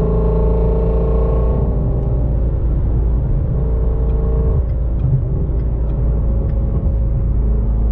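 Car engine, exhaust drone and tyre rumble heard from inside the cabin at steady highway cruising speed: a constant deep rumble with a steady hum over it.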